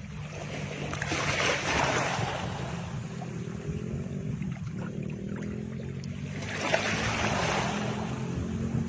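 Ambient background track under a silent screen recording: steady low held tones with two slow swelling washes like surf, one about a second in and one near the seven-second mark.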